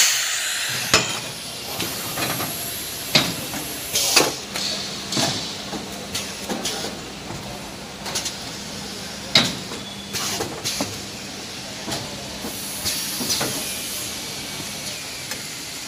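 Kitchen towel roll bundle packing machine running, its pneumatic cylinders clacking and letting out short hisses of air about once a second over a steady machine noise.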